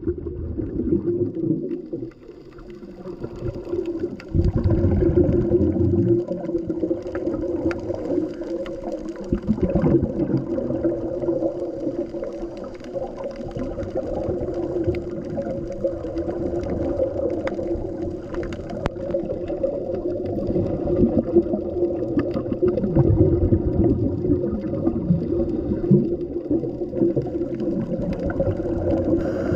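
Underwater sound on a scuba dive: a steady muffled hum, with a surge of low bubbling from the diver's regulator every few seconds.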